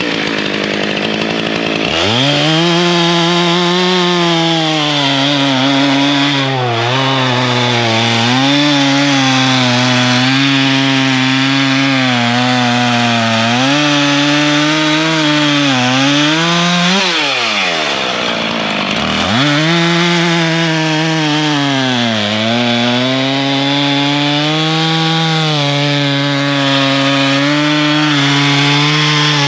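Husqvarna 572, a 70 cc two-stroke chainsaw with a 28-inch bar, cutting through a log under load, its engine pitch sagging and recovering as the chain bites. Near the middle it revs free, drops back toward idle, then is throttled up into a second cut.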